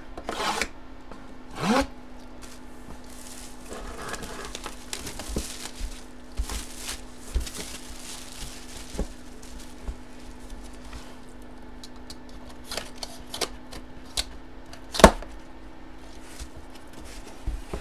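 Cardboard jersey box being handled and opened: the lid slides and scrapes, with rustling and scattered light knocks and clicks, and one sharp knock about fifteen seconds in. A steady hum runs underneath.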